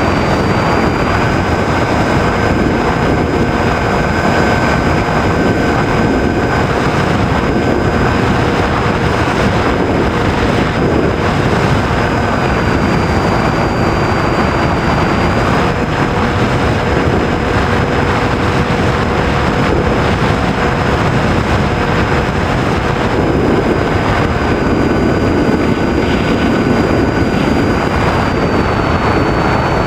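Radio-controlled model airplane in flight: a steady rush of airflow over a motor-and-propeller whine whose pitch steps up and down slightly several times with throttle.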